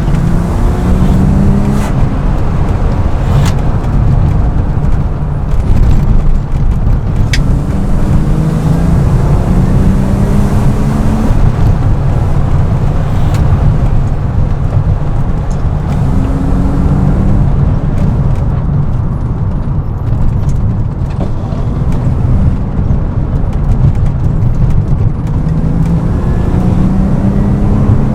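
BMW E36 M3's straight-six engine under acceleration, its note climbing in pitch again and again a few seconds apart, over a steady heavy road rumble.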